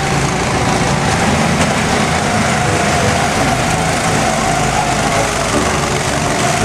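Small go-kart engines running steadily at speed as several karts drive past, their pitches overlapping.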